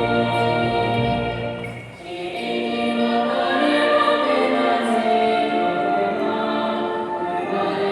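Choir singing a slow song with brass band accompaniment, held notes in several parts; the music dips briefly about two seconds in between phrases, then swells again.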